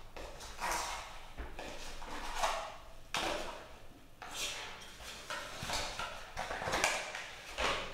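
Cardboard packaging being handled as a nylon webbing camera strap is pulled out of its folded card sleeve: a string of short, irregular rustles and scrapes.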